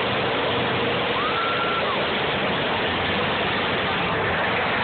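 Demolition derby cars' engines running, a dense, steady din. About a second in, a short high tone rises and falls.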